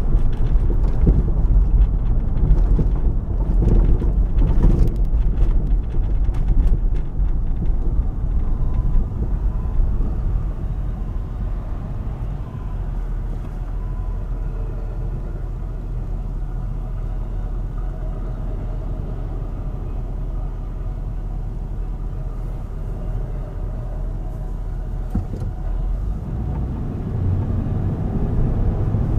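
Road noise and engine rumble of a car, heard from inside the cabin as it drives slowly toward a grade crossing. The rumble is rougher for the first eight seconds or so, then settles to a steady low drone and builds slightly near the end.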